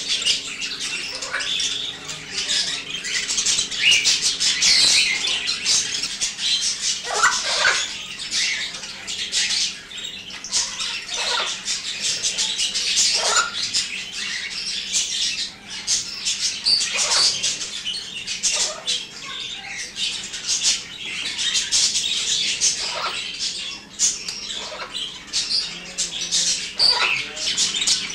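Many cage birds chattering and squawking together in an aviary. It is a dense, unbroken high-pitched chatter, with a few louder calls that slide in pitch now and then.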